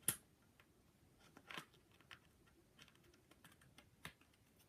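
Snap fasteners on a replica wrestling championship belt's strap being pressed shut: a few short sharp clicks, the loudest at the very start and the others scattered over the next few seconds. The snaps are stiff and hard to close.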